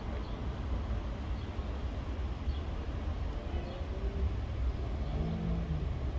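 Steady low rumble of road traffic, with one vehicle's engine note standing out briefly about five seconds in.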